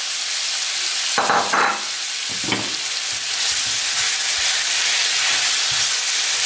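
Diced onions frying in oil in a hot pan, a steady sizzle that grows louder about three and a half seconds in. A utensil stirs and scrapes through the pan twice in the first half.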